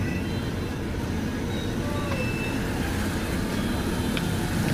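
Street ambience: a steady rumble of road traffic, with faint voices.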